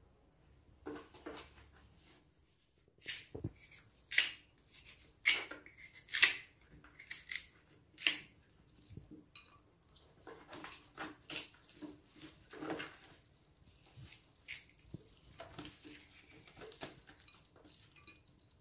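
Kitchen knife cutting and peeling a firm green fruit over a plate: a run of sharp, crisp cuts and clicks, loudest in the first half, then softer scraping cuts.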